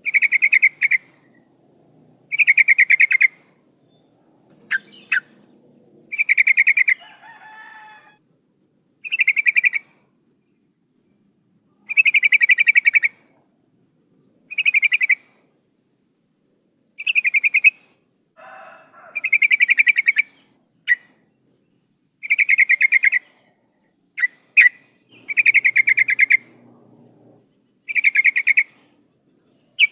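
Yellow-vented bulbul (trucukan) calling: about a dozen rapid chattering phrases, each about a second long and two to three seconds apart, with a few short sharp notes between them. The uploader offers it as a female calling for a male.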